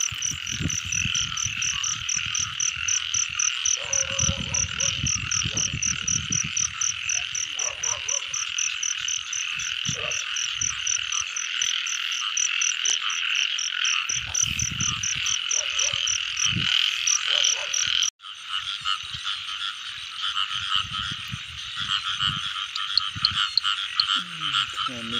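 A dense night chorus of many frogs calling together, with a fast, evenly pulsing high trill running through it. Low scuffing and handling noise comes and goes underneath, and the sound breaks off for an instant about 18 seconds in.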